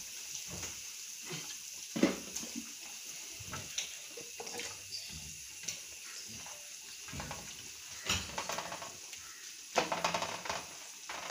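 Hands laying marinated beef rib pieces into an aluminium pressure cooker of water. Scattered soft knocks and wet clatters against the pot, the busiest near the end.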